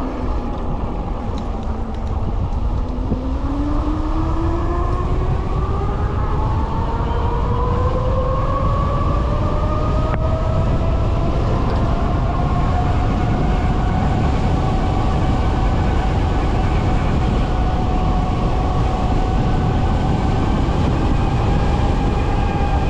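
QS273 electric hub motor on a high-power e-bike, whining as it drives. The pitch dips slightly, rises steadily for about ten seconds as the bike speeds up, then holds level at speed, over a steady low rumble.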